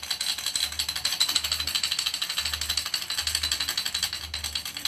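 Hand-held ritual rattle shaken fast and steadily, giving a dense, even rattling.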